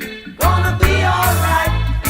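Background music: a steady bass line and drum hits under a wavering lead melody.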